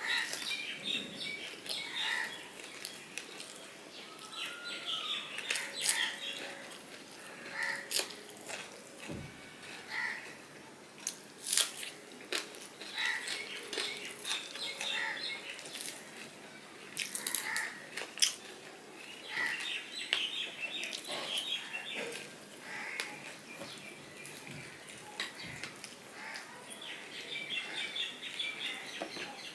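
Close-up chewing and lip-smacking of a person eating fried hilsa fish and rice by hand, with short wet mouth clicks every second or two.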